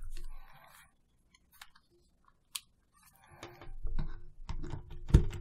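A few light plastic clicks, then a Ryobi cordless screwdriver runs from about halfway through, driving a machine screw down into a plastic valve bonnet. A sharp knock sounds near the end.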